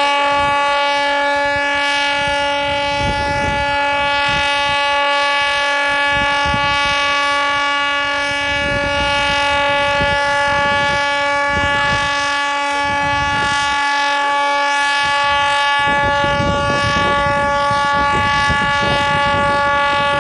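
Ship's horn of the Japan Maritime Self-Defense Force minesweeper Enoshima sounding one long, steady blast, sounded to close the fireworks display. Its deepest tone drops out about sixteen seconds in while the rest of the horn holds on.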